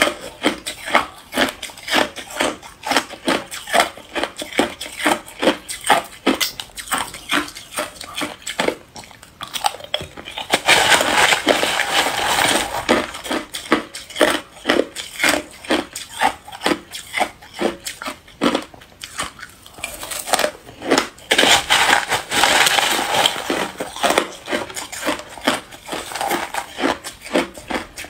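Hard clear ice being bitten and chewed close to a microphone: sharp crunches at about two to three a second, with two longer stretches of denser, continuous crunching.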